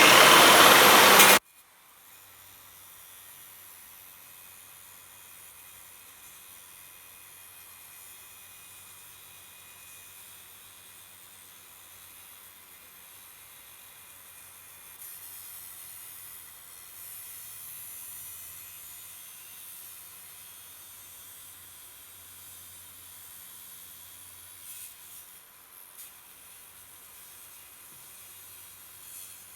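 A 9-inch angle grinder starts very loud for about a second and a half, then drops suddenly to a faint, steady hiss while it keeps cutting scrap metal. The hiss grows a little louder for a stretch in the middle.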